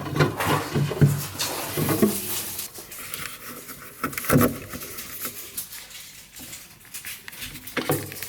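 Irregular clatter of handling: short knocks, taps and rustling at an uneven pace, with a louder cluster of knocks about four seconds in.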